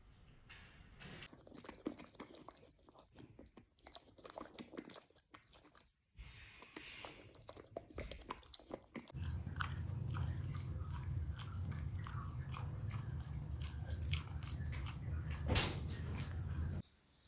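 A boxer dog chewing, with irregular crunches and clicks. From about nine seconds in, a steady low hum runs underneath and stops shortly before the end.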